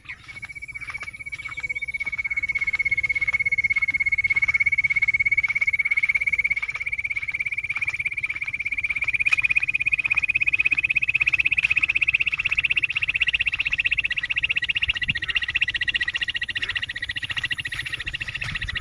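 An animal's long, rapid, pulsing trill, held without a break and rising slowly in pitch.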